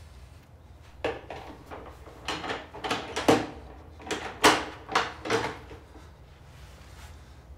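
Scuffle noises: a run of about nine knocks and thuds over some four seconds, starting about a second in, with a low steady hum under them.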